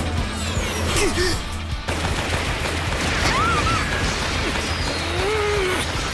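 Cartoon battle sound effects: a dense, continuous barrage of blasts and impacts like rapid gunfire, as energy beams strike a sword and throw off sparks, with a few short whooshing glides, over background music.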